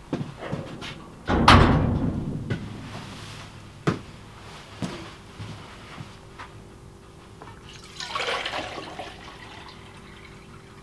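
Water rushes out suddenly about a second in and fades away over a second or so. Light knocks follow, and near the end a nylon bag rustles as it is handled.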